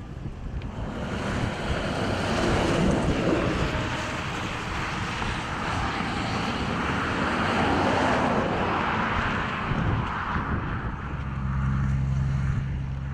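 Wind rushing and gusting over the microphone, swelling and easing in waves. A steady low hum comes in near the end.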